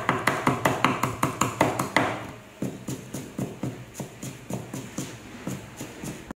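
Chinese cleaver rapidly chopping scallions into fine bits on a thick wooden chopping board, quick even knocks about five a second that turn softer about two seconds in.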